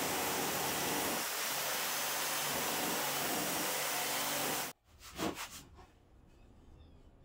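Corded jigsaw running steadily as it cuts through a wooden board, stopping abruptly about two-thirds of the way in. A couple of brief, light handling sounds follow as the cut wood strip is picked up.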